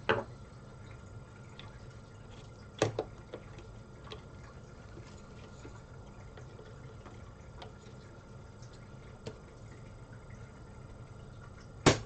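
SDRAM memory modules being handled and pushed into a motherboard's DIMM slots: sharp plastic clicks of the slot clips, one at the start, a double click about three seconds in and the loudest near the end, with a few small ticks between, over a faint steady hum.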